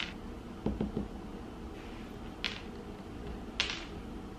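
A few faint, brief rustles and soft taps in a quiet room: hands and paws moving at a table during a treat-training session.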